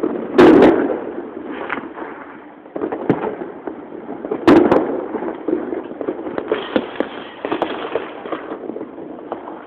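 Fireworks going off: two loud bangs, about half a second and four and a half seconds in, with a run of smaller pops and crackles between and after them.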